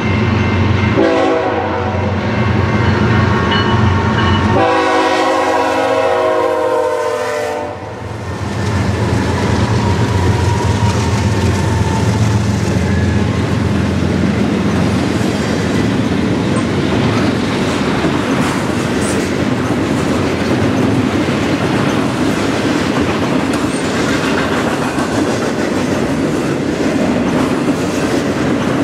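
BNSF diesel freight locomotives sound a chord air horn in several long blasts, the grade-crossing warning, as they approach. The horn stops about eight seconds in, and the loaded double-stack well cars roll past with a steady rumble and the clatter of wheels over the rail joints.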